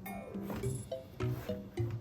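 Background music: a light tune of short plucked-sounding notes over a bass line, with a quick falling run of notes near the start.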